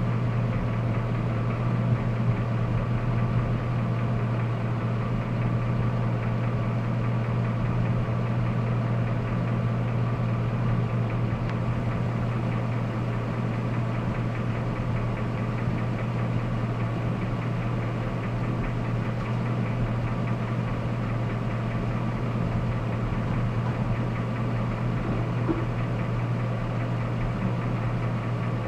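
Jasper remanufactured 5.3-litre V8 idling steadily, carrying a noise its owner has not been able to identify.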